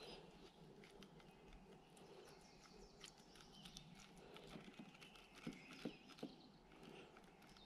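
Near-quiet background with faint, light clicks of a fork against a metal baking tray, three sharper taps close together about two-thirds of the way through.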